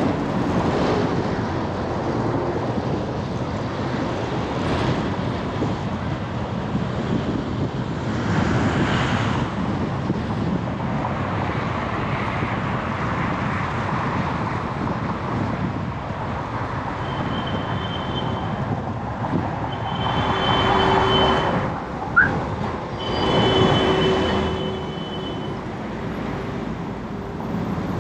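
Busy road traffic: a steady rumble of engines and tyres, with vehicles passing louder now and then. In the last third a faint high whine comes and goes, and there is one short sharp sound a few seconds before the end.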